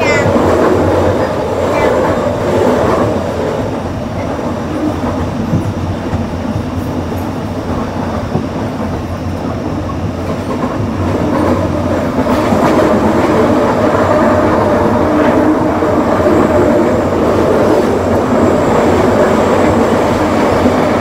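Train running, heard from inside the passenger car: a steady rumble and rail noise with faint clicks of the wheels on the track, growing somewhat louder about halfway through.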